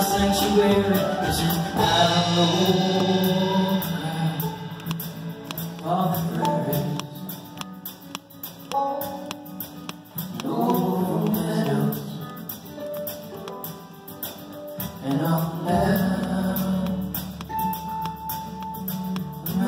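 Acoustic bluegrass band playing live: banjo, mandolin, acoustic guitar and upright bass, with singing over the instruments.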